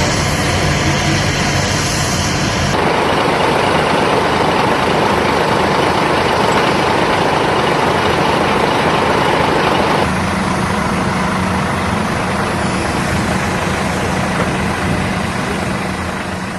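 Steady, loud noise of heavy military engines running, with a low hum. It changes abruptly twice, as the footage cuts between machines, and begins fading out near the end.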